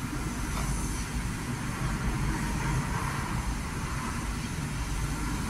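Steady rumble and hiss of diesel being pumped into a Fiat Ducato motorhome's fuel tank.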